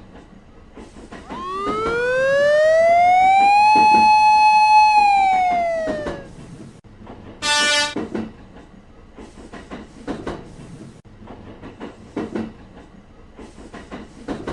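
Cartoon train sound effect: a pitched whine that rises for about two seconds, holds, then falls away as the train passes, followed a little later by a short, bright horn toot. Faint scattered clicks underneath.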